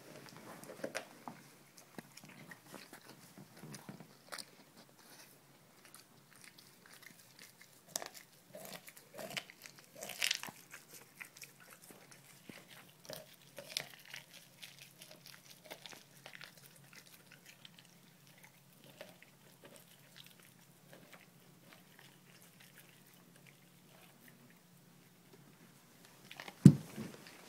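A Dogo Argentino puppy chewing and biting into a whole raw fish, with irregular crunches and clicks of teeth on flesh and bone. A single sharp thump near the end is the loudest sound.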